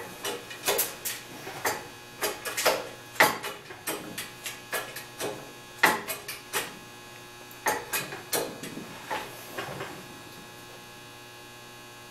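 OTC 25-ton hydraulic shop press squeezing a toy figure's body: irregular sharp clicks and cracks, two or three a second, which stop about ten seconds in. A steady mains hum runs underneath.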